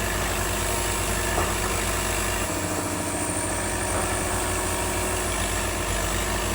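Diesel excavator engines running steadily.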